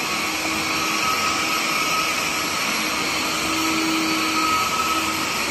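Sichler window-cleaning robot's suction fan running while the robot holds itself to the glass: a steady, really loud rush of air, with a faint hum and whine that fade in and out.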